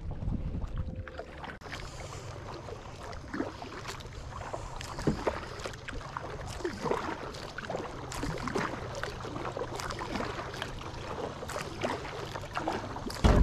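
Kayak being paddled: the paddle blades dipping and splashing, with water dripping, heard as many short scattered splashes over a low steady rumble.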